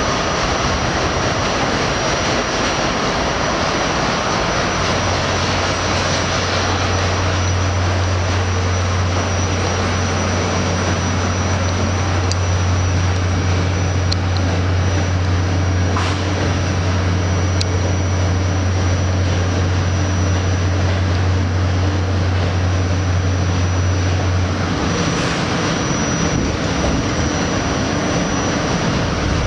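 Inside a moving R68 New York City subway car: the steady running noise of the train travelling along the track. A deep steady hum joins about five seconds in and drops out near twenty-five seconds.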